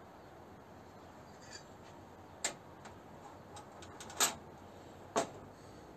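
Three light, sharp metal clicks in the second half, with faint ticks between: small aluminium spacer plates being pulled from a soldered copper antenna patch and handled at a bench vise.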